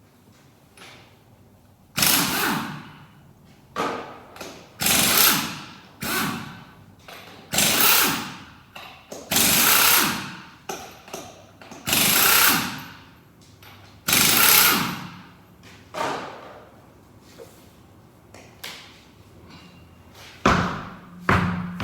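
Impact wrench run in repeated bursts of about a second each, with short pauses between, working a nut loose on a wheel being taken apart.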